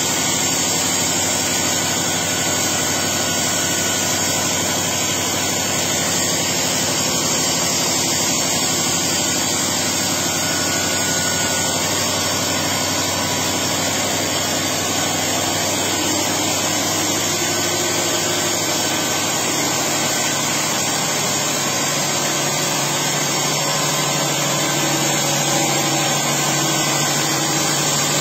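Engine-driven generator set running steadily, its engine fed with gas from a biomass gasifier.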